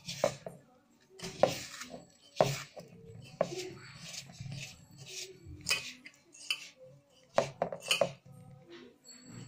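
A stainless steel pot clunking and scraping on the counter while a hand kneads and presses laddoo mixture inside it: sharp metallic knocks about once a second, with a quick run of three or four near the end.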